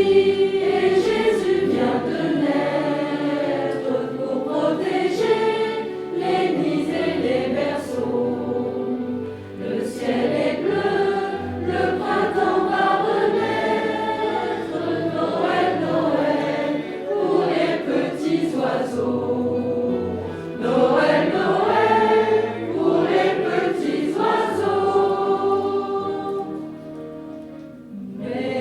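A choir singing a Christmas song in continuous phrases, with short breaks between phrases and a fade near the end.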